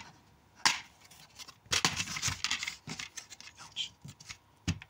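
Plastic DVD case being handled and opened: a few sharp clicks of the case and its hinge with bursts of rustling and scraping in between, the sharpest clicks about a second in, near two seconds in and near the end.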